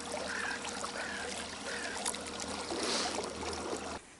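Quiet water trickling and lapping over a steady low hum, cutting off abruptly near the end.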